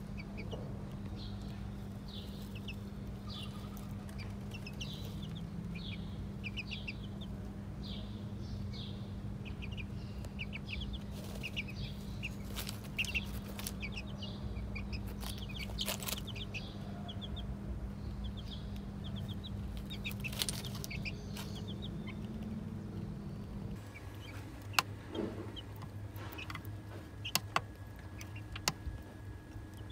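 Young chicks peeping, with many short high chirps in quick runs, over a steady low hum. Near the end the chirps thin out and a few sharp clicks come through.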